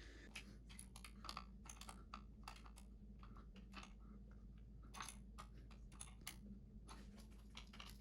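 Faint, irregular light clicks of a 10 mm wrench working the nut on the motorcycle's shift lever, a few a second.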